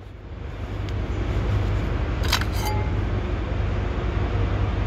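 A galvanized steel stud clip is picked up off a concrete deck and clinks twice, about two seconds in, over a steady low rumble.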